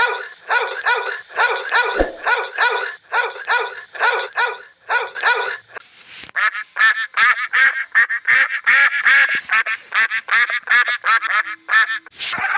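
An animal calling over and over in short, pitched calls, about two a second. After a brief pause near the middle comes a faster, higher series. A single sharp knock sounds about two seconds in.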